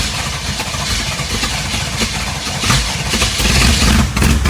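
1975 Chevrolet Corvette's 350 small-block V8 running just after its first start, rough and uneven, getting louder toward the end.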